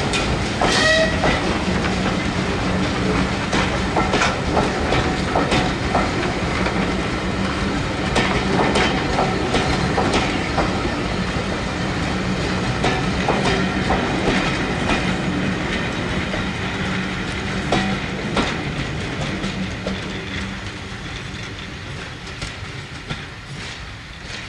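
Railway passenger carriages rolling past at low speed, their wheels clicking and clattering irregularly over rail joints and points. The sound fades away near the end as the train draws off.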